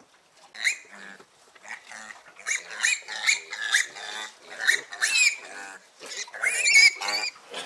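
Piglets squealing in a rapid run of short, high-pitched squeals as they are carried upside down by their hind legs, in distress at being taken from the sow at weaning. The squealing starts about half a second in and is loudest near the end.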